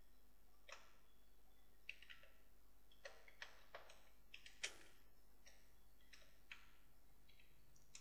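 Faint computer keyboard keystrokes: about a dozen irregular clicks as a word is typed, over near silence.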